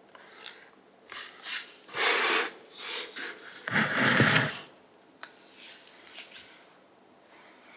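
Pet brush stroked through a long-haired cat's fur: a run of short, scratchy brush strokes, the loudest about two and four seconds in.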